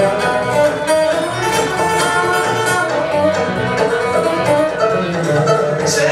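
Acoustic string band of fiddle, acoustic guitar, mandolin and bass playing an instrumental passage, the guitar flatpicked and the fiddle bowed.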